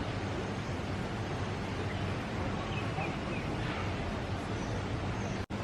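Steady rushing outdoor noise, like wind or surf, with a low hum under it and a few faint high chirps about three seconds in.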